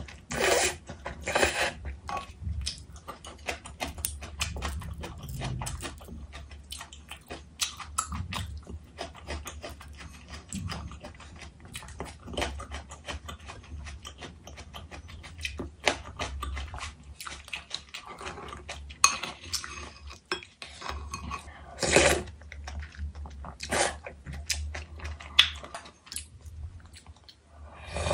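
Close-up mukbang eating sounds: noodles and gomtang broth slurped about a second in, chewing, and wooden chopsticks and a wooden spoon clicking against an earthenware bowl and ceramic side plates many times. Louder slurps come about three quarters of the way through and near the end, as broth is drunk straight from the bowl.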